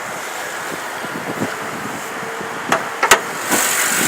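2008 Chevrolet Avalanche's 5.3-litre V8 idling steadily, with two sharp knocks near the end, after which the idle comes through louder. A clean idle with no odd squeaks or groans.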